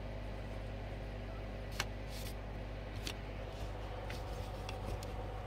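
Sony record player running, a steady motor hum with several light mechanical clicks from its turntable mechanism, a worn part that jams now and then.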